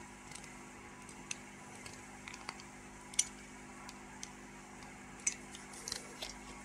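Scattered light clicks and taps from an RKSB-104 dosimeter being handled and taken apart, about one every second or so, over a faint steady hum.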